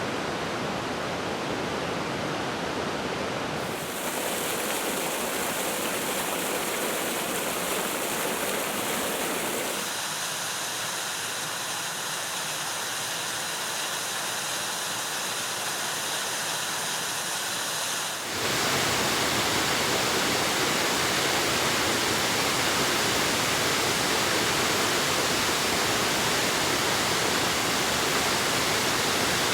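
Rushing water of waterfalls: a steady roar of falling water that changes abruptly about 4, 10 and 18 seconds in as one falls gives way to the next. The stretch from about 10 to 18 seconds is thinner and lacks the deep rumble, and the last stretch is the loudest and fullest.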